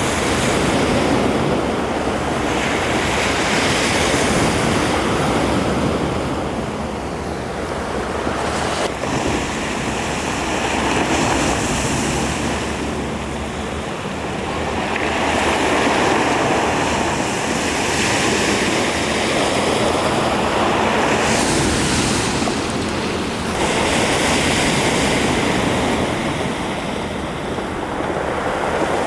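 Sea waves surging and washing in, swelling and fading every few seconds, with wind on the microphone.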